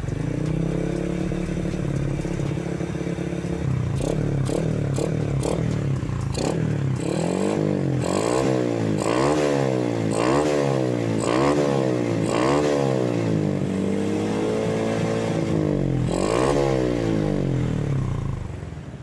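Tuned Honda Revo single-cylinder four-stroke motorcycle engine (ported and polished, TK carburettor) through a fully baffled aftermarket exhaust, idling and then blipped: from about four seconds in the revs rise and fall quickly, about once a second, with a longer held rev near the end before dropping back. The exhaust note is blaring, built that way at the owner's request.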